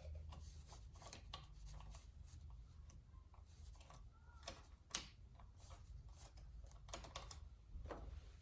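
Faint, scattered light clicks and taps of small parts and hand tools being handled on a small chainsaw, with two sharper clicks about halfway through and a few more near the end, over a faint low hum.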